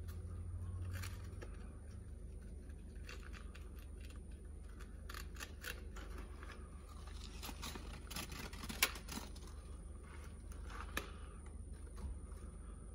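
Steady low hum with faint scattered small clicks and scrapes, and a sharper click about nine seconds in and another about two seconds later.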